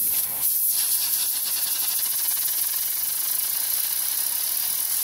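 Steady hiss of compressed air from an air compressor's blow gun nozzle, blasting a fidget spinner to spin it fast.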